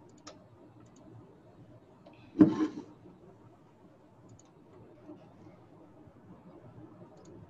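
Quiet room noise with a few faint clicks, broken by one short loud noise about two and a half seconds in.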